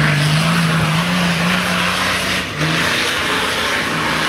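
Off-road 4x4's engine running hard under load, its note rising slowly, then easing off for a moment about two and a half seconds in before pulling steadily again.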